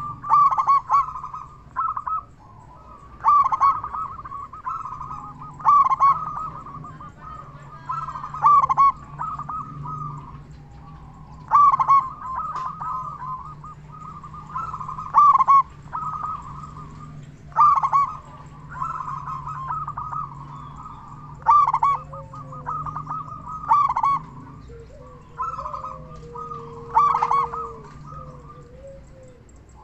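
Zebra dove (perkutut) cooing loudly over and over, a quick rolling phrase of coos about every two to three seconds.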